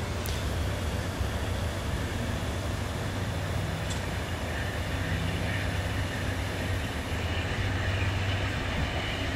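Steady low rumble of the Amtrak California Zephyr passenger train, a string of bi-level Superliner cars, on the track at the station.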